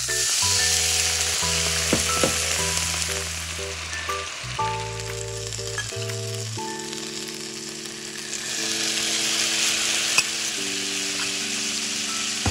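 Hot frying pan of stuffed lotus-root patties sizzling hard as water is poured in to steam-fry them, the hiss starting suddenly and easing off. About two-thirds through the sizzle swells again as a sauce bubbles up around the patties.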